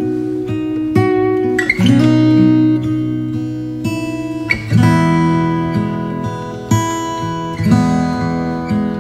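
Background music: acoustic guitar chords, a new chord struck every second or two and left to ring.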